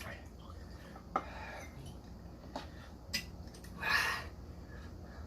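A few light clicks and knocks of a glass and tableware on a table, with a short breathy sound about four seconds in, over a low steady hum.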